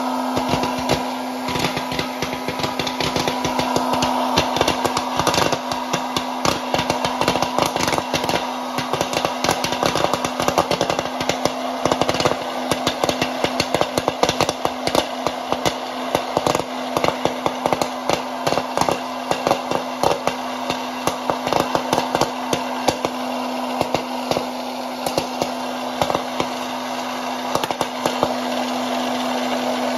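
Dash hot-air popcorn maker running: its fan motor hums steadily while kernels pop in rapid, irregular cracks, thickest through the middle and thinning out near the end as the batch finishes.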